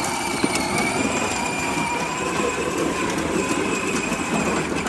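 Battery-powered ride-on toy tractor driving along, its electric motor and gears giving a steady whine over the rumble of its wheels rolling on paving stones.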